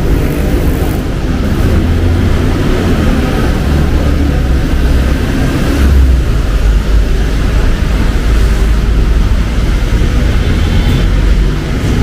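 Road traffic: vehicle engines running close by, a steady low rumble with engine notes that shift as vehicles move past.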